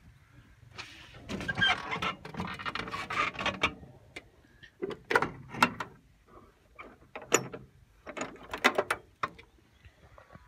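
Irregular clicks, knocks and rustling of someone climbing onto a tractor's seat past its sheet-metal fender. No steady engine note is heard.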